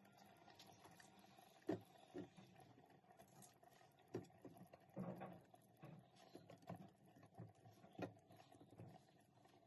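Faint, irregular soft knocks and taps as peeled potato halves are set onto a wire rack in a stainless steel pot, knocking against each other and the metal. The loudest knock comes a little under two seconds in.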